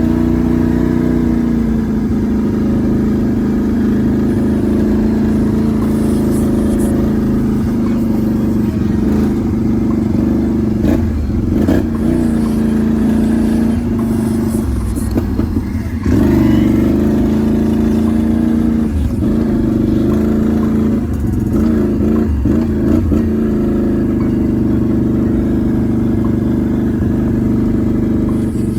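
Can-Am Renegade 1000 XMR ATV's V-twin engine running steadily, its pitch dipping and rising a few times with the throttle in the second half.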